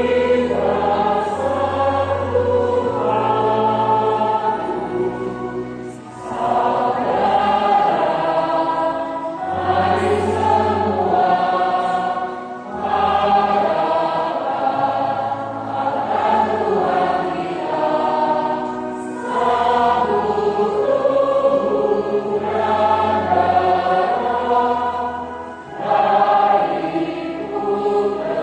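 A church choir and congregation singing a hymn together, in long sustained phrases with brief breaks between them.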